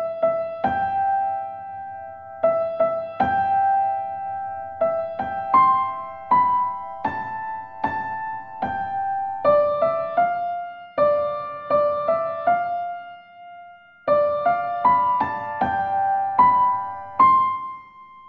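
Gentle, slow piano music: a melody of single notes over sustained chords, each note struck and fading. It starts suddenly and pauses briefly about three-quarters of the way through.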